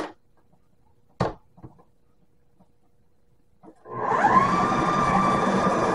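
Plastic clicks as a food processor's lid and feed-tube pusher are set in place, then about four seconds in its motor starts with a rising whine and runs steadily, blending chickpeas into hummus.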